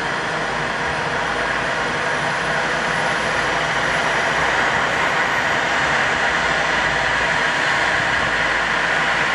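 Eurocopter EC135 rescue helicopter running on the pad during start-up: a steady turbine and rotor noise with a faint high whine that slowly rises in pitch as the turbines spool up, growing a little louder.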